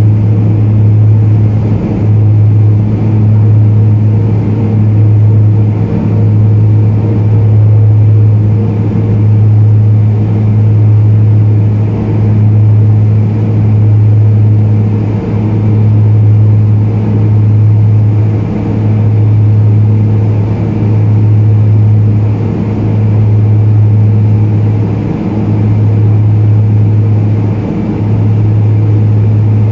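Cabin drone of a BAe Jetstream 32's twin Garrett TPE331 turboprops in the climb after takeoff: a loud, steady low propeller hum that swells and dips every two to three seconds as the two propellers beat against each other.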